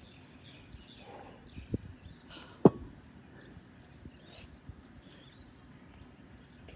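A 25-pound kettlebell is set down on concrete: a lighter knock, then a louder, briefly ringing clunk about a second later. Birds chirp faintly afterwards.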